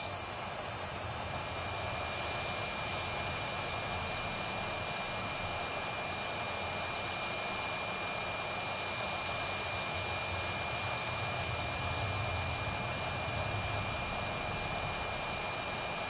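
Hot air rework station blowing a steady rush of hot air onto a phone motherboard, reflowing the solder for a new charging connector. A thin, steady high whine runs through the air noise, which grows a little louder about a second in.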